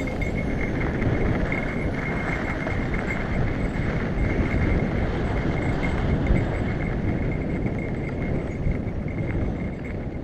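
Wind rushing over a helmet-mounted action camera and mountain bike tyres rumbling and rattling over a dry dirt trail while riding downhill, with a thin steady high whine over the noise. The noise eases off near the end.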